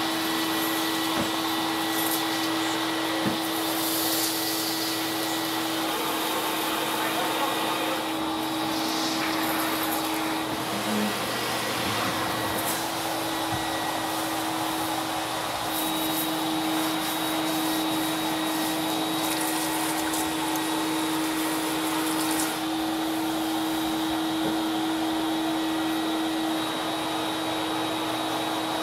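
Vacuum cleaner motor running steadily while its floor wand is worked over carpet: a constant hum with a thin high whine over the rush of air.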